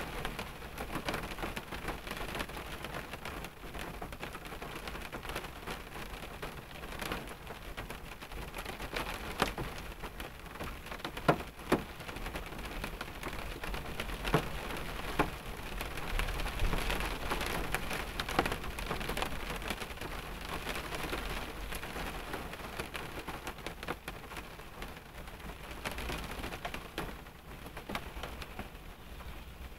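Rain falling on a car, heard from inside the cabin: a steady patter with scattered louder single drops striking the body and glass.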